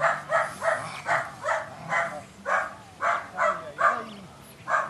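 Belgian Malinois puppy barking over and over in quick succession, about two barks a second.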